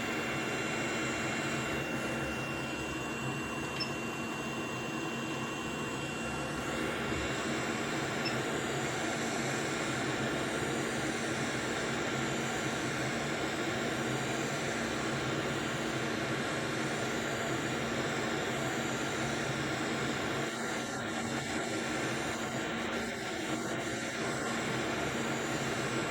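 Hot air rework station's blower running steadily: an even rush of air with a constant fan hum and faint whine. This is the airflow used to heat a BGA GPU chip for solder reflow.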